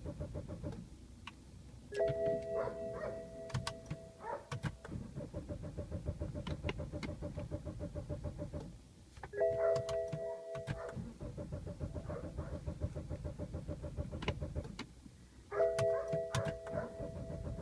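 BMW E90 engine being turned over by the starter in three runs of fast, even chugging, each broken by a short pause. Each run begins with a dashboard warning chime of a steady chord about a second long. The engine is not starting, the no-start fault here blamed on a bad charging relay.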